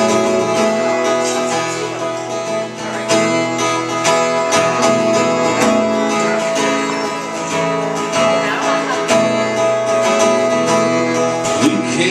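Acoustic guitar strummed in a steady rhythm, played live as the instrumental intro to a song before the vocals come in.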